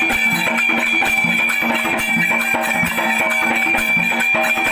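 Instrumental interlude of a Marathi shahiri folk song: plucked strings and a held high note over a steady drum beat.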